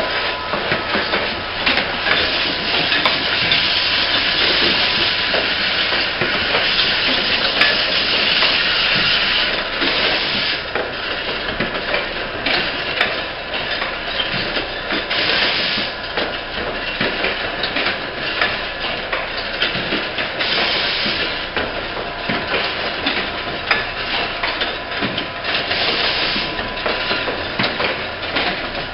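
Automatic insulin syringe assembly machine running: a busy clatter of clicks and knocks from its feeding and transfer mechanisms. Hisses of compressed air from its pneumatic cylinders come every few seconds, each lasting about a second.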